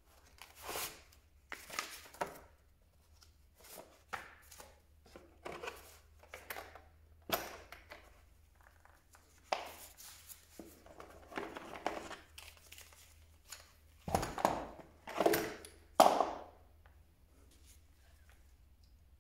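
Handling noises from a hard plastic tool case as a corded hammer drill and its cable are lifted out of it: scattered clicks, knocks and rustles, the loudest knocks about fourteen to sixteen seconds in.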